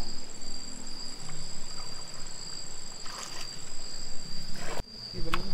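Night insects chirring steadily in two unbroken high-pitched tones. The sound drops out briefly about five seconds in.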